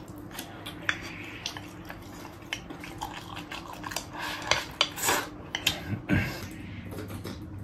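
Wooden chopsticks clicking and scraping against a ceramic rice bowl as rice is shoveled into the mouth, in many quick ticks that come thickest in the middle of the stretch.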